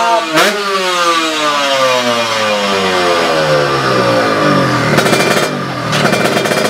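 Kawasaki Ninja 150 two-stroke drag bike engine being blipped, then its revs falling away slowly over several seconds and settling into a rough, crackling, popping low-rev run near the end.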